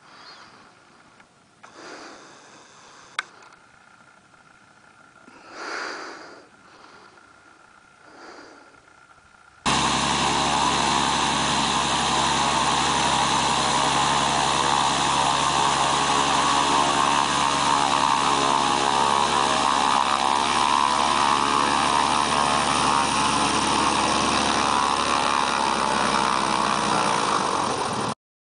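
Kitfox light plane's propeller engine running steadily at close range as it taxis on grass. The engine sound starts suddenly about a third of the way in, after only faint swells of distant sound, and cuts off abruptly near the end.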